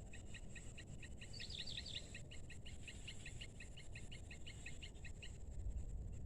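Birds calling: a fast series of short chirps, about eight a second, that stops about five seconds in, with a brief higher warbled phrase about a second and a half in. A steady high insect drone and a low rumbling noise run beneath.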